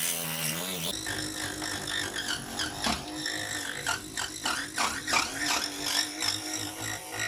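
A homemade cordless mini drill's small DC motor running at steady speed, with irregular sharp scraping clicks from about two and a half seconds in as the bit works against material.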